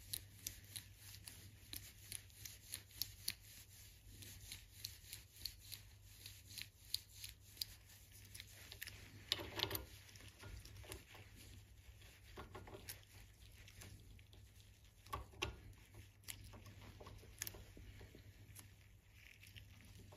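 Faint, irregular small metallic clicks and ticks from a freshly greased ratchet head's gear and pawl parts being handled and fitted back together by hand. There are a few louder clicks around the middle and near the end.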